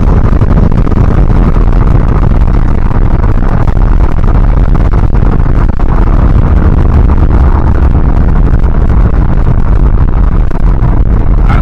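Loud, steady rumble of a moving vehicle, heaviest in the low end.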